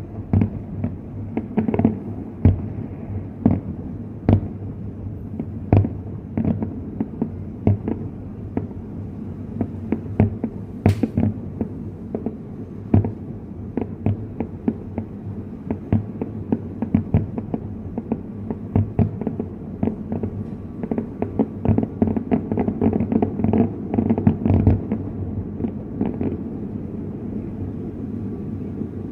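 Fireworks display: a steady stream of irregular booms and cracks over a low rumble, with a thicker flurry of bangs about three-quarters of the way through.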